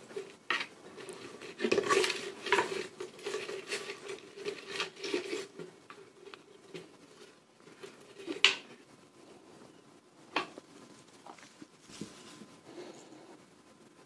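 Clinks, taps and rattles of small items handled at a pot as ingredients go into it. The loudest knock is about eight and a half seconds in, with a sharp click a couple of seconds later.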